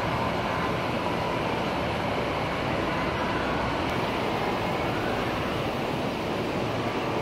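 Steady running noise of a model steam locomotive and other model trains on a layout: an even mechanical hum and rail hiss, with faint steady whine and low hum in the hall.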